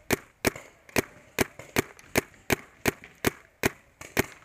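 Paintball marker firing shot after shot at an even pace, about two to three sharp pops a second.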